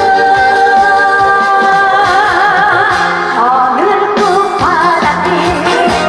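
A woman singing a Korean song into a microphone over loud amplified backing music with a beat, holding long notes with vibrato.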